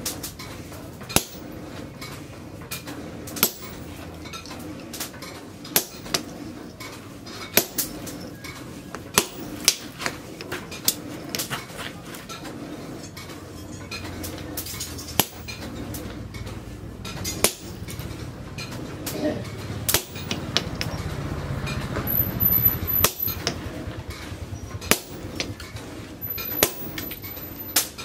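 Hand hammer striking leaf-spring steel on an anvil in uneven, separate blows with a short metallic ring, over a steady low hum that grows louder for a few seconds past the middle.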